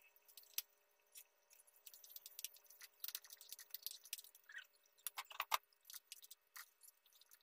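Beef frying in a wok, giving off faint crackling and popping. A wooden spatula stirs the pieces and knocks against the pan a few times around five seconds in.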